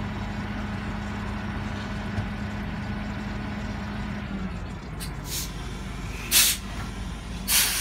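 Flatbed tow truck's engine idling with a steady low hum, which changes about four seconds in. Short, sharp air-brake hisses follow: a couple of small ones about five seconds in, then two loud ones near the end.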